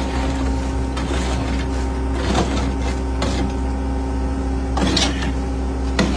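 Caterpillar skid-steer loader's diesel engine running steadily. Over it, a rake scrapes wet concrete out of the loader's raised steel bucket into wheelbarrows, in about six irregular strokes.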